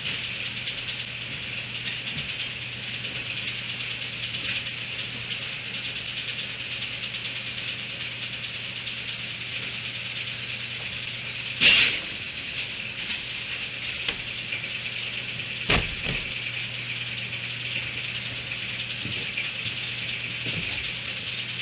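A steady high-pitched chorus of late-summer insects with a low electrical hum underneath. Two sharp knocks stand out, about 12 and 16 seconds in.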